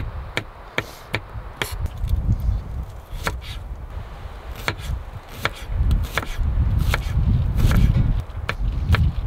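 Kitchen knife chopping ginger and shallot on a wooden cutting board: quick, irregular knocks of the blade striking the board. Under them runs a gusty low rumble of wind on the microphone, loudest a little past the middle.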